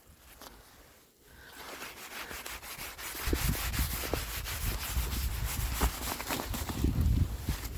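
Gloved hand rubbing and brushing through packed snow on a car's surface: a steady scraping rustle of many quick strokes that starts about a second and a half in and grows louder, with low rumbling bumps underneath.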